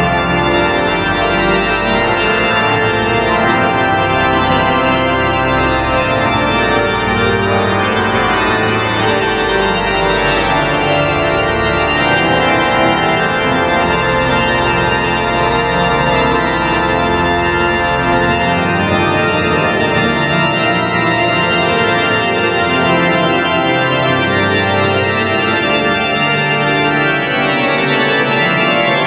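Church organ playing dense, sustained full chords at a steady loudness. The deep bass notes fall away about two-thirds of the way through, leaving the upper voices.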